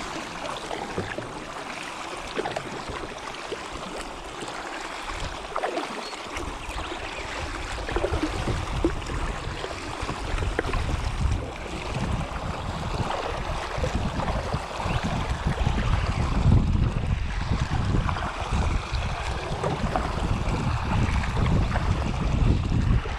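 Water splashing and lapping around a kayak on the river. From about six seconds in, wind buffets the microphone with a low rumble that makes it louder.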